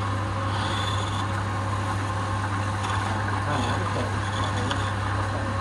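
Wood lathe running with a steady low motor hum while a hand-held chisel scrapes the spinning wooden workpiece, with intermittent higher scraping tones.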